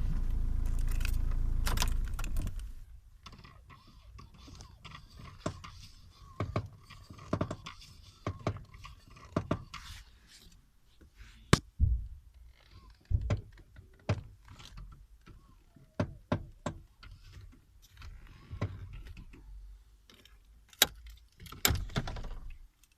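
A car's 1.9 dCi diesel engine running, then cut off about two and a half seconds in, followed by scattered sharp clicks and knocks.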